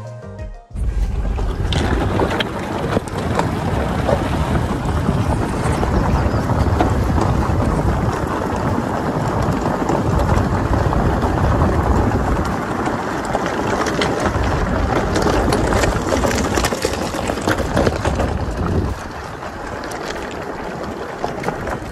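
Wind rushing over an outside-mounted microphone and the tyres of a Toyota Fortuner rolling over loose gravel and stones at speed, with scattered clicks of stones. The noise eases a little about three seconds before the end.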